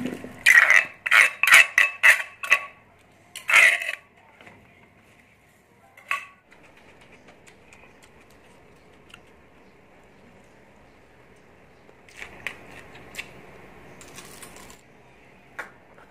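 Metal spoon scraping and clinking against a mortar and a plate as a pounded salad is scraped out, a quick run of loud clinks in the first four seconds. About twelve seconds in come quieter clinks of a fork and spoon on the plate.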